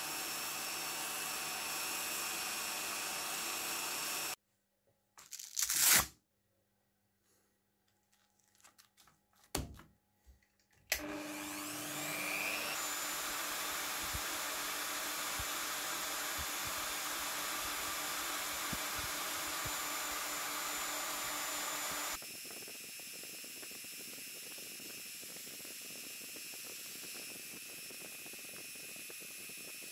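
Rotary polisher motor running with a steel part pressed against its spinning sanding disc, a steady grinding hiss. About four seconds in it breaks off into near silence with a couple of sharp knocks. It starts up again after about eleven seconds and runs on, turning quieter about two-thirds of the way through.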